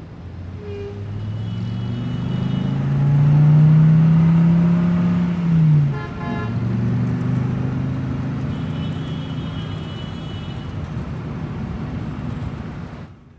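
City street traffic noise with engines running. A heavy vehicle's engine rises slowly in pitch for a few seconds, then drops sharply about six seconds in, as a brief horn toot sounds.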